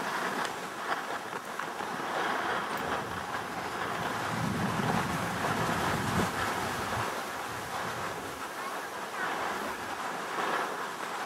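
Skis sliding over snow at speed, a steady rushing hiss mixed with wind blowing across the microphone.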